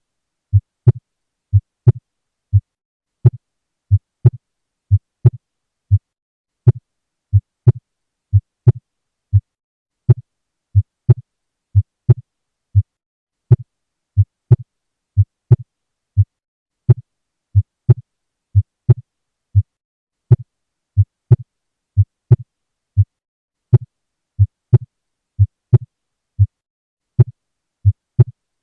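Heart auscultation recording of a loud second heart sound (S2): a steady lub-dub of paired low thuds at about one beat a second.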